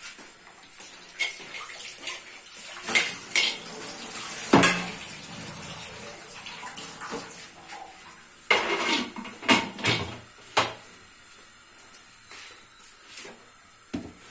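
Aluminium pressure cooker lid and metal pots clanking and knocking as the lid is handled and fitted, with tap water running briefly. The loudest knock comes about four and a half seconds in, and a run of clanks follows around nine to ten seconds in.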